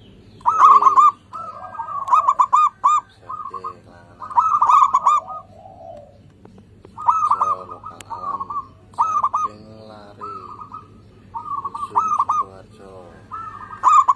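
Zebra dove (perkutut) cooing: short phrases of quick, bubbling high coos repeated every second or two, with fainter lower calls in between.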